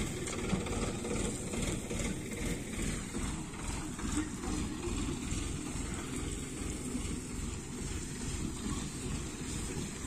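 Sonalika tractor's diesel engine running steadily under load, pulling a trailer piled with paddy straw, with an even low pulsing beat.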